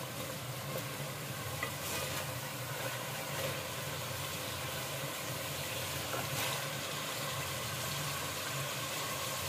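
Chicken pieces sizzling in ghee in an aluminium pot as a spoon stirs them, scraping and clicking against the pot now and then; the water the chicken has released is cooking off. A steady low hum runs underneath.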